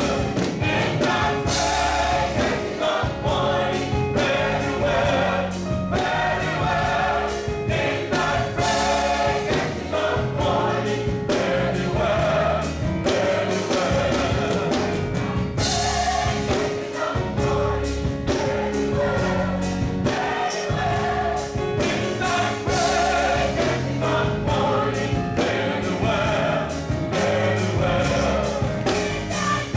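Gospel choir singing with a band, drums keeping a steady beat under a heavy low end.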